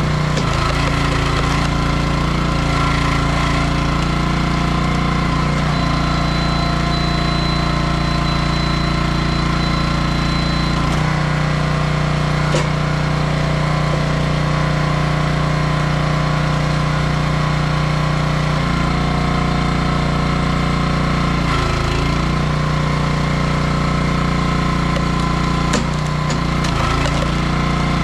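Small gasoline engine of a 27-ton log splitter running steadily. Its note shifts several times as the splitter works, with a thin high whine for about five seconds in the first half and two short sharp knocks.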